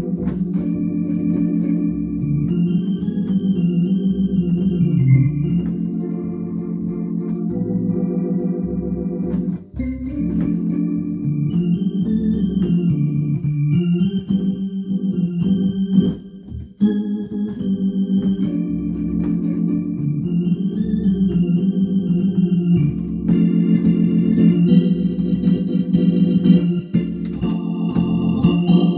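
Hammond SK digital drawbar organ playing a slow tune: held chords in the middle register under a melody line, with a bass line beneath. There are brief breaks between phrases about ten and seventeen seconds in.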